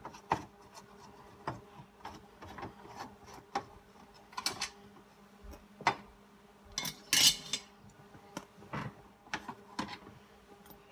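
Scattered light clicks and taps of a screwdriver and small loose parts as screws are worked out of a car's center console, with a short scraping rub about seven seconds in, over a faint steady hum.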